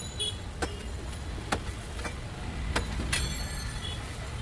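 A kitchen knife knocking sharply on a plastic cutting board several times while a papaya is cut, over a steady low rumble of street traffic. A brief high ringing tone sounds about three seconds in.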